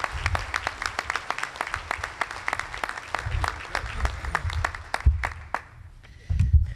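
Audience applauding a speaker's welcome, many hands clapping that thin out and die away about six seconds in, with a few low thumps near the end.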